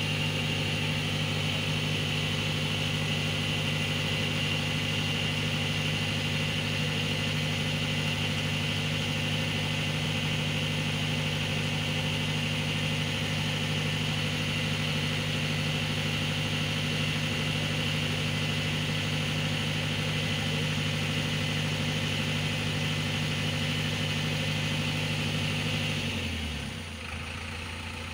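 Backhoe loader's diesel engine running steadily at raised revs, then the revs drop to a lower idle near the end.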